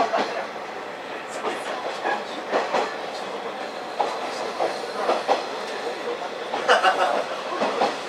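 KiHa 40 diesel railcar running along the line, heard from inside the car: a steady rumble with irregular clacks and knocks of the wheels on the track, the loudest cluster near the end.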